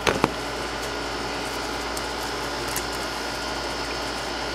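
A few quick knocks right at the start as the handheld camera is set down, then a steady mechanical hum and hiss from a running appliance in the room.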